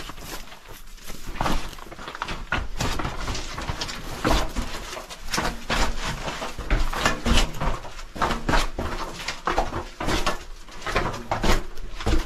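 Irregular footsteps and scuffs, with wind rumbling on the microphone.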